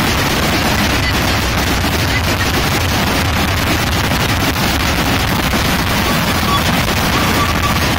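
Fireworks batteries firing in a dense, unbroken barrage of rapid bangs and crackles, with no pause.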